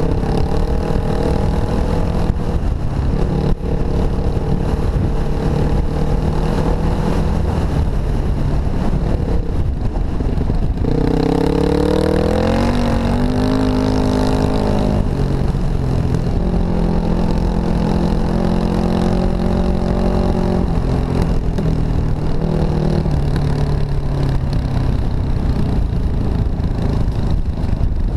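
Off-road dirt bike engine running steadily under a rider on a dirt trail, its revs climbing about eleven seconds in, then holding and easing again, over a constant rush of road and wind noise.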